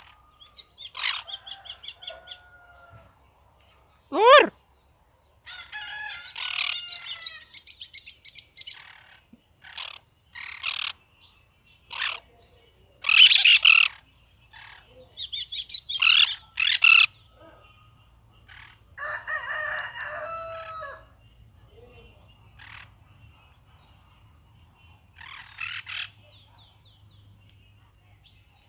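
White-throated seedeater (golinho) singing and cactus parakeets calling: irregular bursts of chirps and trills mixed with harsh screeches, with one loud sweeping call about four seconds in.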